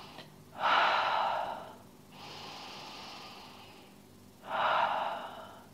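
A woman breathing deeply and audibly in a held yoga pose: two long, loud breaths, about half a second in and again near the end, with a softer breath between.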